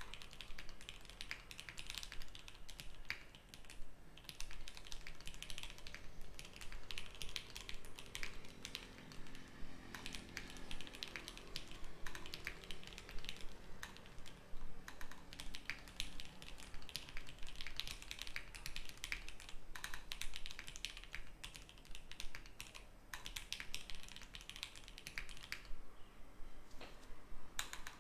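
Steady fast typing on a custom KBD67 MKII mechanical keyboard: lubed Jwick Black linear switches (Krytox 205g0) in an acrylic plate, under Akko cherry-profile keycaps, giving a continuous run of keystroke clacks with a short lull near the end.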